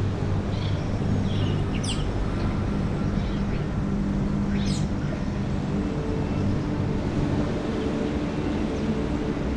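A steady low mechanical hum with birds chirping over it and two quick sweeping calls, about two and four and a half seconds in.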